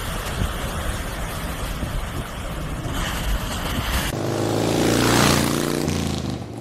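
Wind rumbling on a phone microphone over rushing surf as a wave breaks. About four seconds in, a racing motorcycle engine sweeps past, swelling quickly and then fading.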